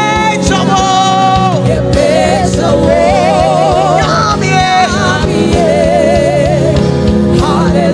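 Live gospel worship music: a voice holding long, wavering notes over a band with a steady drum beat.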